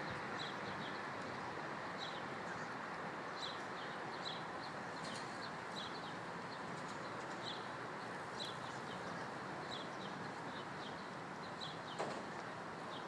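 Small birds chirping repeatedly in short high notes over a steady low background rumble, with one sharp click near the end.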